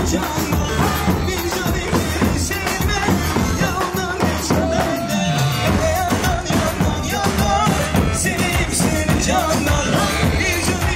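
Turkish folk dance music carried by large davul bass drums beaten in a fast, steady rhythm, with a wavering melody line above the drumming.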